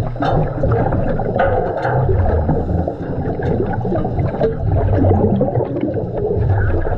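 Underwater gurgling and bubbling from a diver's breathing exhaust, with a low, wavering rumble and scattered sharp clicks and knocks.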